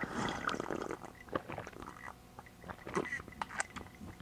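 A sip from a coffee mug, then a person chewing a mouthful of beignet, with scattered small mouth clicks.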